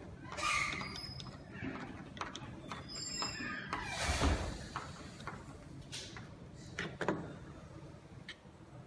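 Sliding door and its automatic operator hardware being handled during installation: scattered clicks and knocks, a few brief high squeaks about three seconds in, and a heavier thump about four seconds in.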